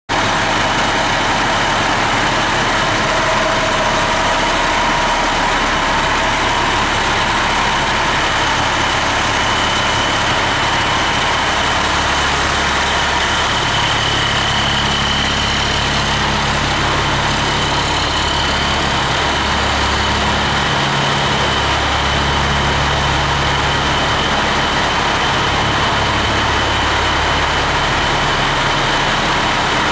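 Pierce aerial ladder fire truck's diesel engine idling steadily under a loud, even noise with a thin steady high tone. The deep engine note comes up more strongly about twelve seconds in.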